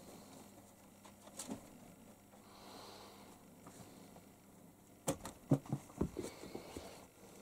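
Faint room hum with a single soft click, then from about five seconds in a quick run of sharp knocks and rustles, like things being handled and shifted about.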